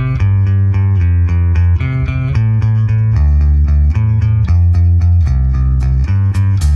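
A song playing: an instrumental passage of bass and guitar notes in a steady rhythm, with no vocals.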